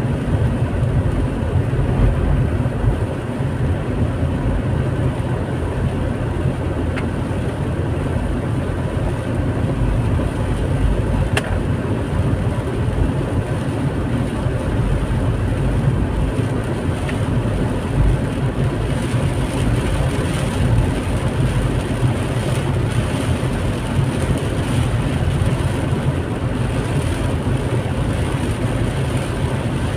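Steady road noise heard inside a car driving through heavy rain: tyres on the wet road and rain on the car over a low, even drone.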